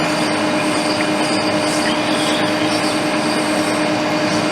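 Soldering fume extractor fan running steadily: an even whir with a constant low hum.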